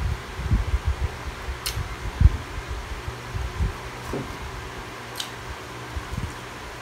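Electric fan running with a steady hum, over soft irregular low thumps and a few sharp small clicks from eating fish by hand at the table.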